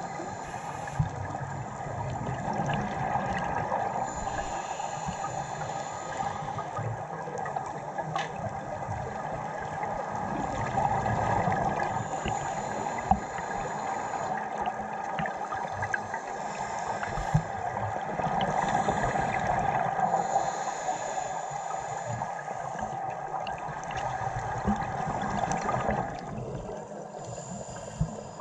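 Underwater sound through a dive camera's housing: a steady hiss and hum of the sea, with the gurgle of scuba regulator exhaust bubbles rising every few seconds and a few sharp clicks. The sound drops off a little near the end.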